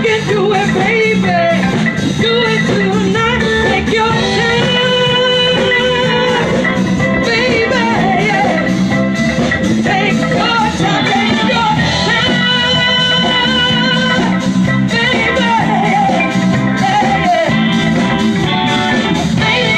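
Live band playing through a PA: a singer's melody with held, wavering notes over electric guitar, drum kit and keyboard.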